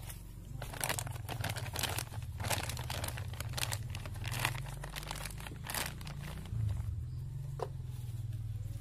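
Black plastic polybag crinkling and rustling as it is handled and its rim folded, in a run of short crackles over the first six seconds or so.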